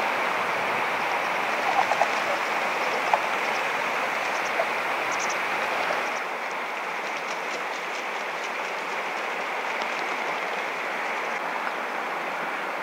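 Steady rushing noise of flowing water, with tundra swans giving a few short calls in the first three seconds.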